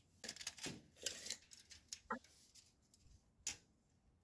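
Faint, scattered light clicks and taps of hand tools or parts being handled during measuring, a few in quick succession near the start and single ones about two and three and a half seconds in.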